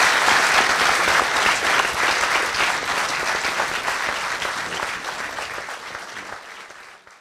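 Audience applauding, many hands clapping at once, growing gradually quieter and fading out near the end.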